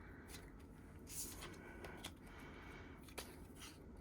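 Faint rustling of paper inserts being handled, with a couple of light taps.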